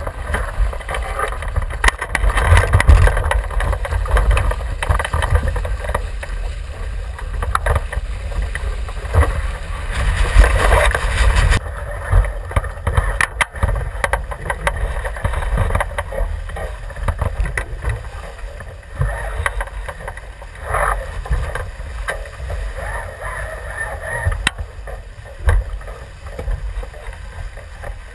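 Wind buffeting a deck-mounted action camera's microphone and water rushing and splashing along the hull of a Javelin sailing dinghy under way, with a few sharp knocks.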